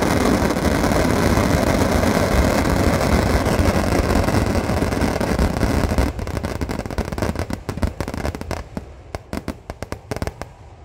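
Vedikettu fireworks display: massed firecrackers going off in a dense, continuous barrage. About six seconds in it breaks up into separate loud bangs that come fewer and further apart and stop near the end.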